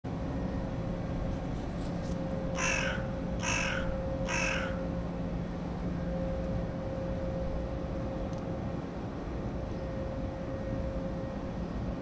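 Carrion crow cawing three times in quick succession, over a steady low background hum.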